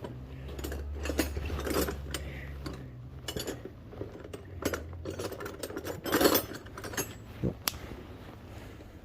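Metal hand tools clinking and clattering as they are rummaged through and picked up, with a louder rattle about six seconds in and a sharp click shortly after. A low hum runs under the first few seconds.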